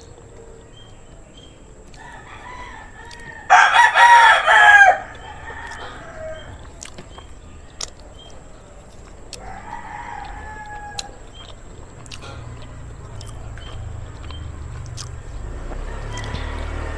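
Rooster crowing: one loud crow lasting about a second and a half, starting some three and a half seconds in, with fainter calls about two seconds and ten seconds in.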